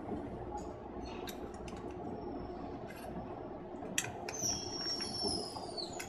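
Small metal lockset parts of a door knob clinking and clicking as they are handled and fitted back together. A sharper click comes about four seconds in, followed by a thin, falling metallic squeal of parts sliding together.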